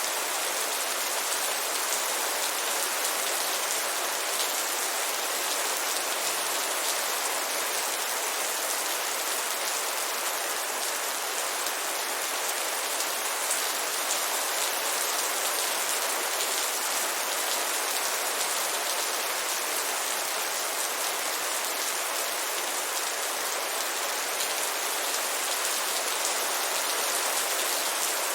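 Heavy rain falling steadily, a dense even hiss of many drops on a surface with no let-up.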